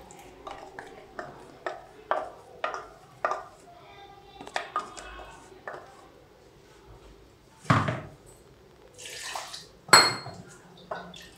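A stainless steel mixer jar and a wooden spatula knocking and scraping against a nonstick kadai as rice batter is poured in and stirred: a run of light taps, a heavier knock about eight seconds in, and a sharp clack with a brief metallic ring near ten seconds.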